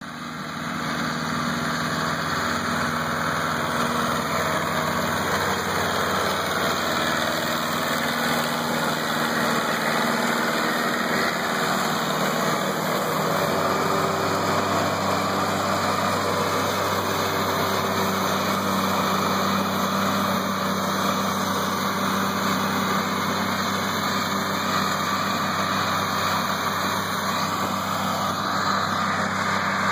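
Tractor engine running steadily under load while driving a New Holland H7220 disc mower-conditioner that is cutting hay. The engine note shifts slightly about halfway through.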